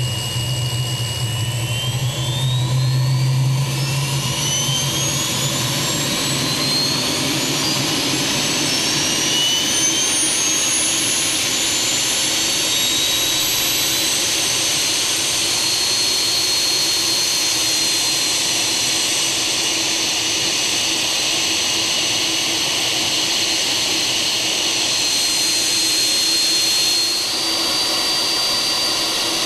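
GR-7 experimental turbojet engine running, its high turbine whine rising in pitch over the first dozen seconds as the engine spools up, then holding steady at high speed with a slight further rise near the end, over a constant rushing exhaust noise.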